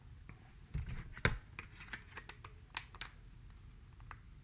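Small plastic clicks and taps of a phone being handled as its battery is fitted back in, irregular and faint, with a dull knock and the loudest click a little over a second in.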